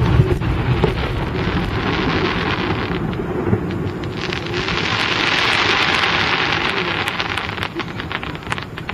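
Firework shells bursting, a loud boom at the start followed by a dense shower of crackling sparks that swells to its loudest in the middle and fades out near the end.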